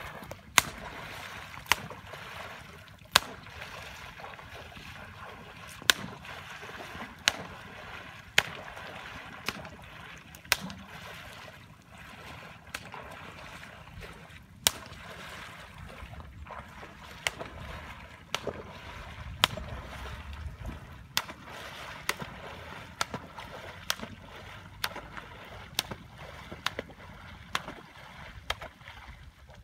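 Water sloshing and splashing as a man wades through a shallow pond, with sharp clicks about every second that come closer together in the second half.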